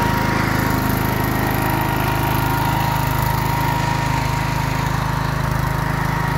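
Gravely Professional 5460 walk-behind tractor's engine running at a steady speed, back in running order after many years of standing unused. A steady whine sits over the even engine note.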